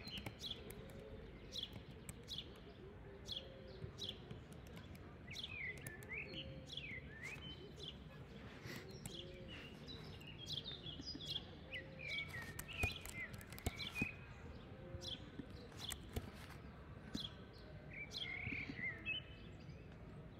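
Birds chirping over a faint background, with scattered sharp clicks of keyboard typing throughout.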